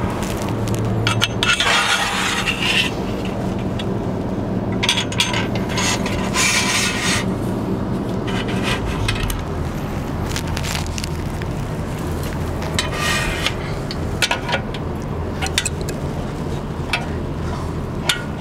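Aluminium solar-panel rail scraping and sliding against the metal pole-mount bracket in three bouts, about 1.5, 5 and 13 seconds in, with light metallic clinks of bolts and nuts being fitted between them. A steady low hum runs underneath.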